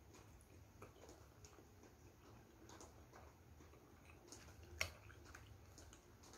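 Near silence with faint scattered clicks from blue plastic training chopsticks being handled over the plates, and one sharper click about five seconds in.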